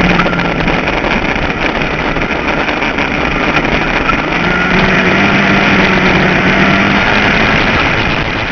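Ford Focus midget race car's four-cylinder engine running at speed, heard on board, mixed with wind noise on the microphone. It starts to fade out near the end.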